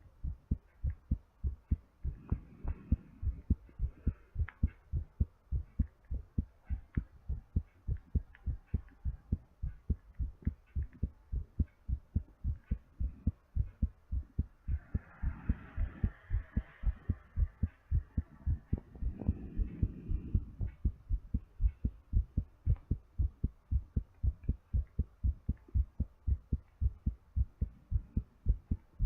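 Human heartbeat beating quickly and regularly, deep thumps about two to three a second, a heart still recovering from exercise. A breath rushes audibly about halfway through.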